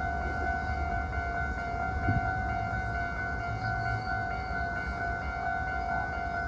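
Hankyu electric train running on the line, a steady low rumble with a brief low thump about two seconds in, under a steady high whine that holds throughout.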